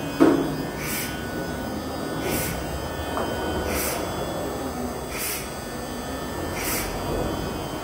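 Thermwood CNC router moving its table: a steady low machine hum with a single clunk just after the start, and a short hiss that repeats about every second and a half.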